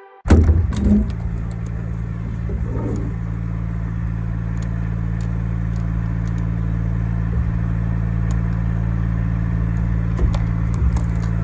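A loud thump just after the start, then a machine engine running at a steady speed with a few light clicks and knocks over it.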